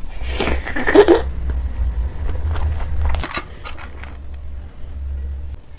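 Close-miked eating sounds: a loud burst of biting and mouth noise about half a second in, then scattered scrapes and clicks of a metal spoon in a steel pot, over a steady low rumble.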